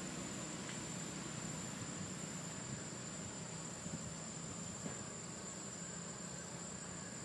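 Steady, high-pitched insect drone that holds one unbroken pitch, over a faint low hum.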